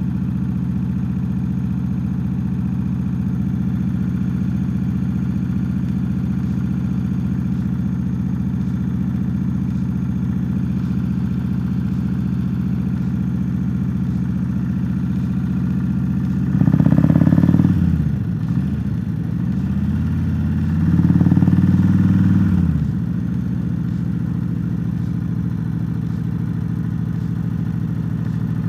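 Motorcycle engine running steadily while riding at low speed. Twice, about two thirds of the way in, it gets louder as the throttle is opened, the pitch rising and then dropping back.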